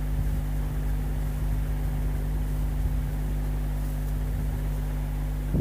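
Steady low hum with a faint hiss around a lit gas burner as oil heats in a steel pan, with a short click near the end.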